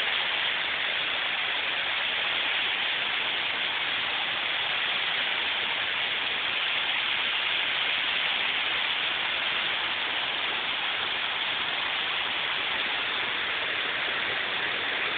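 Torrential rain pouring down in a severe thunderstorm: a steady, even hiss that does not let up.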